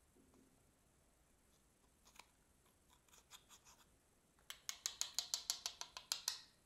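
A small metal tool scraping pressed eyeshadow out of a compact. A few light scrapes come first, then about halfway through a quick run of sharp scratching strokes, about nine a second, which stops just before the end.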